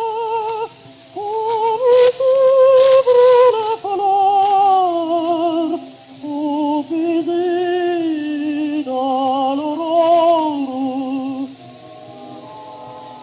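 A contralto voice singing a slow, mostly descending operatic line with wide vibrato, on an early gramophone recording. About a second and a half before the end the voice stops and a quieter accompaniment carries on.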